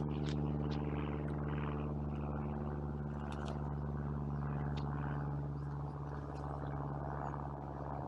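Grey squirrel crunching and chewing nuts right beside the microphone, with scattered sharp clicks, over a steady low hum.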